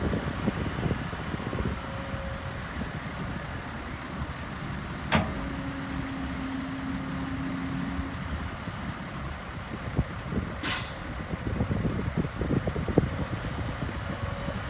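Heavy diesel earthmoving machinery running, with frequent low knocks and clanks. There is a sharp click about five seconds in and a short hiss of air a little before eleven seconds.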